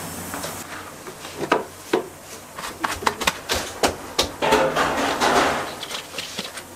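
Irregular knocks, taps and clatter of containers being handled, with a scrape lasting about a second two thirds of the way in, as a plastic bowl is pressed against freshly steamed rice in a granite stone mortar.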